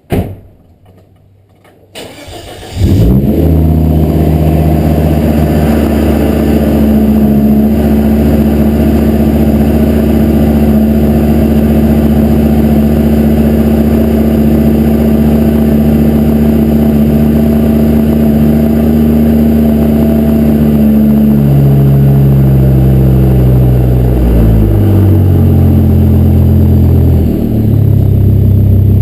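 A sharp click, then the Volvo S60R's turbocharged five-cylinder engine cranking and catching about three seconds in, then running steadily. Later the engine speed falls in steps and settles at a lower idle.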